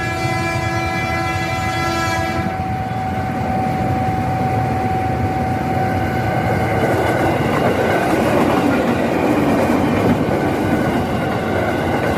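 KRL electric commuter train sounding its horn for about two and a half seconds. It then runs through the station with rail rumble and wheel clatter that grow louder from about seven seconds in.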